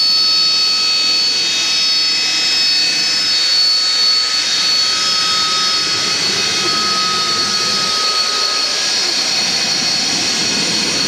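RAF Harrier GR7's Rolls-Royce Pegasus jet engine running, a loud steady roar with a high-pitched whine.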